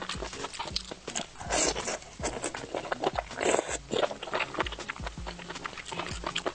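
Close-miked, wet chewing and mouth clicks from eating lobster claw meat, with two longer, louder noisy bites or slurps about a second and a half and three and a half seconds in.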